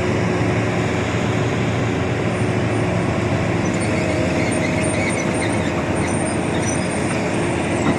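Heavy truck engine running steadily under way, with a low drone and road noise.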